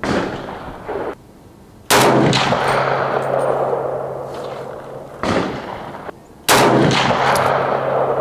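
Semi-automatic AK-47 rifle (milled-receiver Century Arms Model 1960) firing single 7.62x39 rounds: four shots a few seconds apart, the second and fourth the loudest, each ringing out in a long echo.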